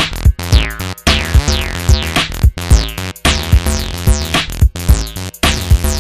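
Electronic music with a drum-machine beat and synthesizer, with high sweeps that fall in pitch and repeat about once or twice a second.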